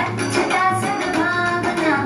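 Song music with a singing voice carrying held notes over instruments and a steady beat.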